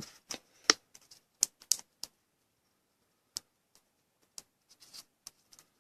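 Sparse, irregular small clicks and taps of a trading card being handled and slid into a plastic sleeve and toploader.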